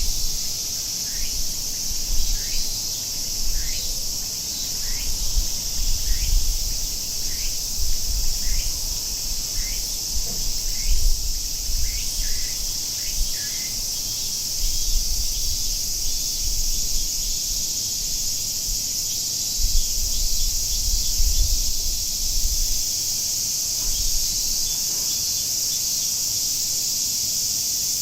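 Cicadas shrilling in a steady, continuous high drone. Through the first half a bird repeats a short call about once a second, then stops. Faint low rumbles come and go underneath.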